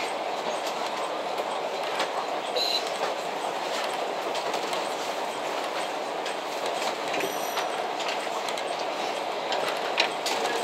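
Running noise heard from inside a passenger train coach as it rolls through station tracks: a steady rumble of wheels on rail, with scattered clicks as the wheels pass over rail joints and points. There is a sharper clack near the end.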